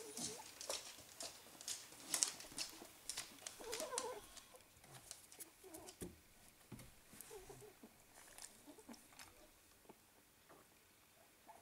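Two-week-old Staffordshire bull terrier puppies giving faint, brief squeaks, among scattered clicks and rustles of movement that thin out after the first few seconds.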